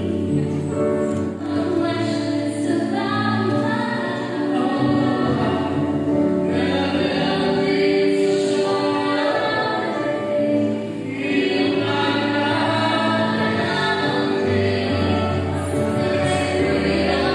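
Music: a slow song with singing over long held chords.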